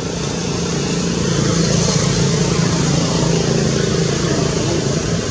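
Steady engine rumble with a noisy hiss over it, getting a little louder about a second and a half in.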